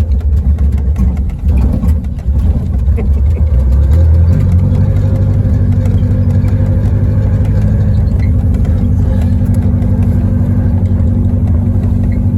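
1973 Volkswagen Karmann Ghia's air-cooled flat-four engine running unevenly as it starts to die, then running steadily and a little louder from about four seconds in. The owners suspect a fuel problem, as it keeps dying after a gallon was put in.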